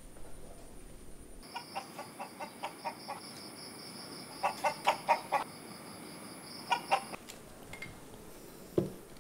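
Chickens clucking in a coop, in short runs of clucks with a louder flurry about halfway through, over a steady high-pitched background trill. A single dull thump comes near the end.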